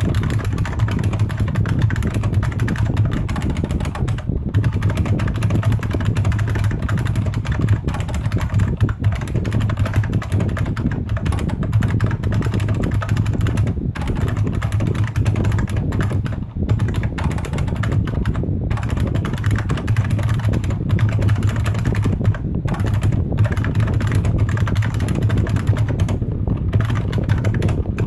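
Continuous fast typing on a Unicomp Ultra Classic buckling-spring keyboard, its keys clicking and clacking in quick runs with a few brief pauses.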